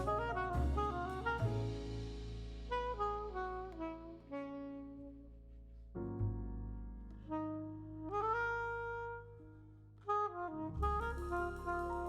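Background music: jazzy instrumental with a saxophone-like lead melody over sustained bass, pausing briefly twice before a fuller passage resumes near the end.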